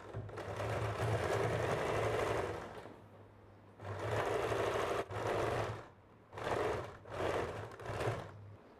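Domestic electric sewing machine stitching in stop-start runs: one run of about three seconds, then several shorter bursts of half a second to a second with brief pauses between, each with a steady low hum under the rattle of the needle.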